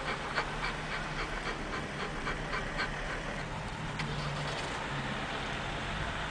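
Golden retriever panting, quick soft breaths about three or four a second that thin out after about three seconds, over a low steady hum.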